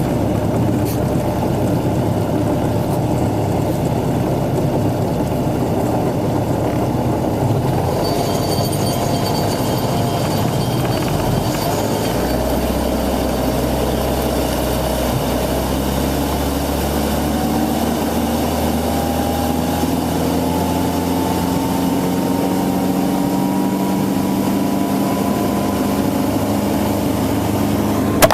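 A 120 hp MerCruiser sterndrive engine in a 1976 Starcraft Holiday boat running under way at steady loudness, its pitch rising slowly over the second half as the boat speeds up toward planing.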